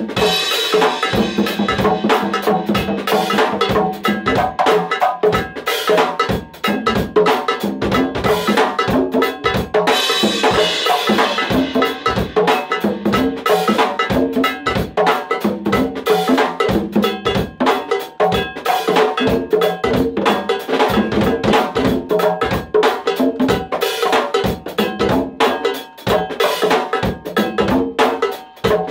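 Congas played by hand in a fast, unbroken go-go rhythm, with sharp slaps and open tones following each other closely.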